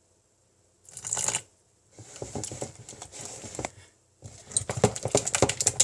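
Glue and borax slime being stirred with a mixing utensil in a container: a short scrape about a second in, then rapid, irregular clicking and scraping that grows busier near the end as the slime thickens.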